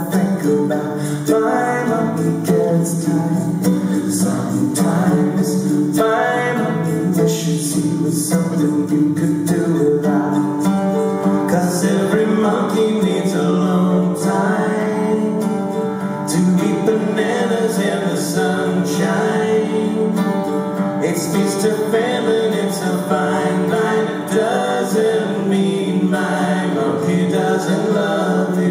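Live acoustic song: several voices singing together over acoustic guitar and ukulele.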